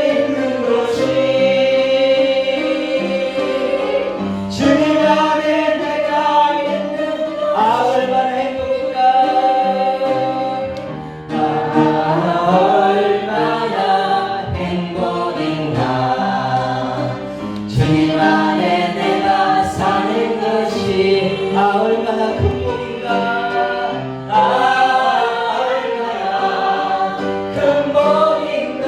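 Group of voices singing a Korean Christian praise song with musical backing, the song continuing without a break.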